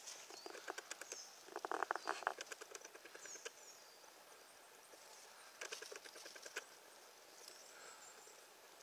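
Two bursts of crackling rustle, the first about half a second in and lasting a couple of seconds, the second shorter, about six seconds in. Faint high bird chirps come between them over a quiet forest background.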